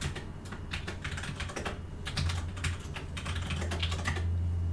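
Quick, irregular clicking in clusters, like typing on a keyboard, over a steady low hum.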